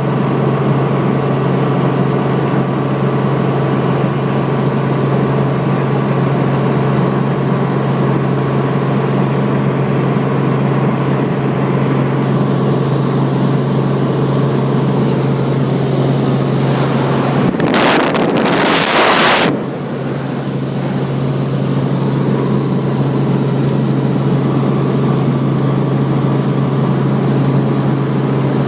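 Helicopter in flight heard from inside the cabin: a steady engine and rotor drone with a strong low hum. About two-thirds of the way through, a burst of noise lasts about two seconds, then the drone returns slightly quieter.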